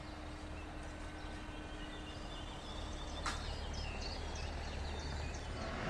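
Level-crossing barrier arm lowering with a faint hum that stops about three seconds in, with a short knock as the arm comes to rest. Birds chirp over a low background rumble.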